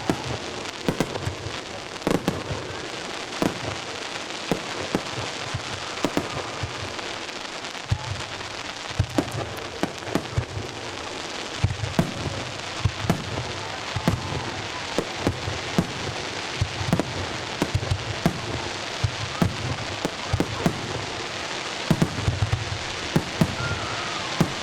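Fireworks display: a steady crackle with many sharp pops and bangs, and low booms of shells bursting about once a second.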